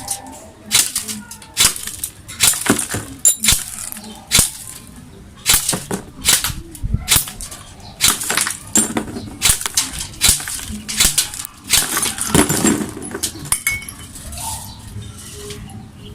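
JG M4 electric airsoft rifle firing about two dozen single shots at an uneven pace, each a sharp crack. A few shots are followed by a short high ring, as BBs strike a thick empty glass bottle. The shots thin out near the end.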